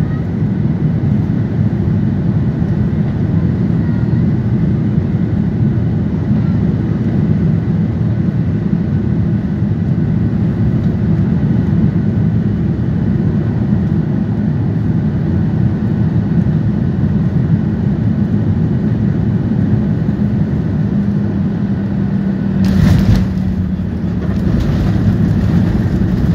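Cabin noise of a Boeing 737-800 airliner on final approach: jet engines running and air rushing past, heard steadily. About 23 seconds in, a brief thump as the main wheels touch down, then a louder, hissier rush as the jet rolls out on the runway with its ground spoilers raised.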